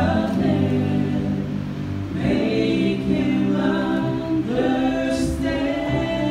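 A woman and a man singing a gospel song into microphones, holding long sustained notes that glide between pitches.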